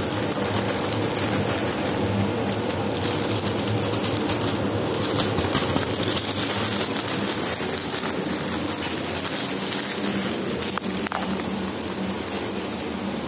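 Plastic salad bag crinkling and rustling as it is handled, emptied and crushed into a bin, over a steady low hum.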